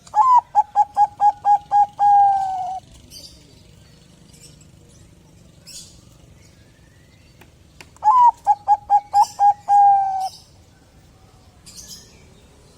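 Zebra dove (Bangkok-type perkutut) singing two song phrases, the second starting about eight seconds in. Each phrase is a run of about eight quick staccato coos followed by a longer, slightly falling note.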